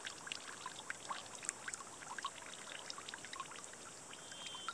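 Water trickling and gurgling, with many small irregular plinks and splashes.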